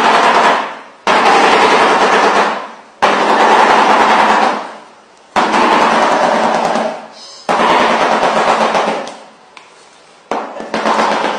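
Shoebill clattering its bill: the upper and lower halves of the bill knock together in fast rattling volleys like machine-gun fire. There are about five bouts of a second or two each, each starting abruptly and fading out. It is a display that seems to serve in greeting other shoebills and in mating.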